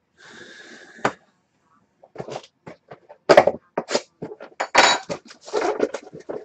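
Cardboard hobby box of hockey trading cards being handled and opened on a wooden table: a faint rustle and one sharp click about a second in, then from about two seconds in a quick run of crackling rustles, scrapes and taps.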